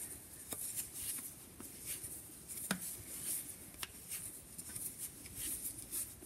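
Faint handling noise of knitting: 10 mm wooden needles and chunky wool yarn rubbing and tapping as stitches are knitted, with a few small sharp clicks spread through.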